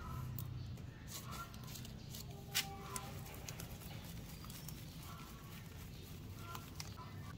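Hands rubbing dry compost and twigs against a plastic basket used as a sieve: a faint rustling scrape with scattered light ticks as soil crumbs drop onto a tiled floor, and one sharper click about two and a half seconds in.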